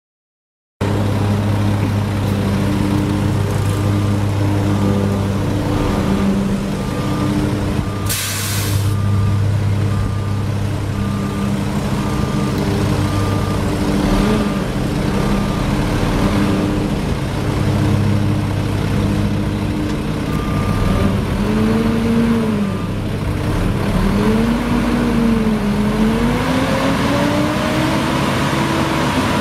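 Mack E7 12.0-litre straight-six diesel of a 2001 Mack RD688SX dump truck idling steadily, with a sharp hiss of air from the air-brake system about eight seconds in. In the last third the engine is revved up and down several times.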